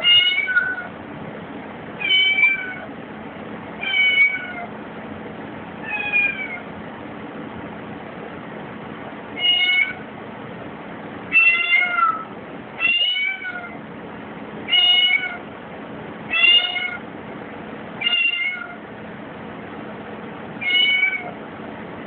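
Kitten meowing over and over: eleven short meows, each falling in pitch, spaced about two seconds apart. It is crying to be let out through a closed door.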